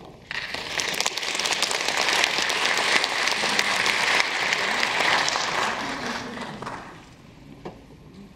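Concert audience applauding: the clapping starts suddenly, holds for a few seconds, then dies away about seven seconds in.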